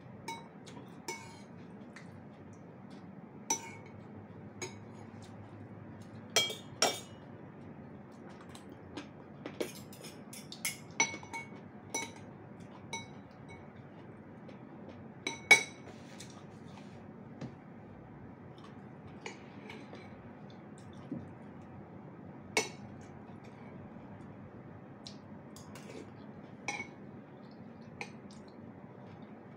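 Eating utensils clinking against a bowl and dishes at irregular intervals of one to a few seconds, several clinks ringing briefly; the loudest comes about halfway through.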